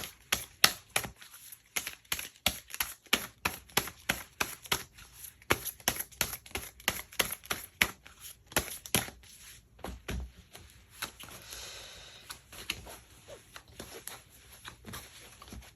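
Tarot cards being handled: a run of sharp card clicks and snaps, a few a second, with a short sliding rustle about eleven seconds in.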